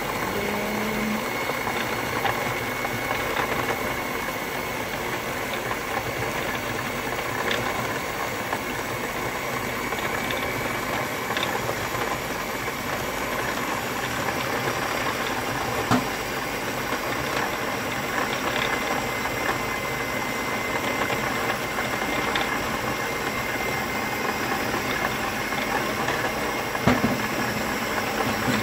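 Electric stand mixer running steadily, its twin beaters whisking raw egg whites that are still liquid and frothy, with a faint constant high whine. There are two short sharp knocks, about halfway through and near the end.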